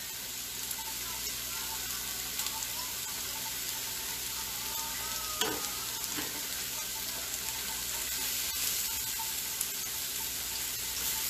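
Steak, mushrooms and red onions sizzling steadily on a hot stovetop griddle, with a few light clicks of tongs moving the mushrooms and onions near the end.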